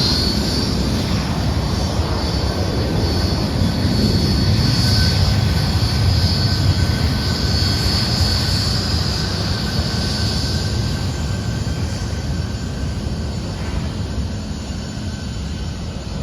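Embraer ERJ-135LR's twin Rolls-Royce AE 3007 turbofans at takeoff power: a loud jet roar with a high, steady whine that has just finished rising as the sound begins. The whine drops out about two-thirds of the way through, and the roar slowly fades.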